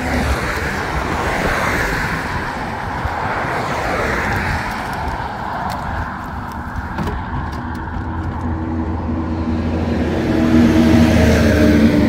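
Road traffic on a highway: a steady rush of tyre and engine noise from passing cars that swells and fades, with an engine hum growing louder near the end.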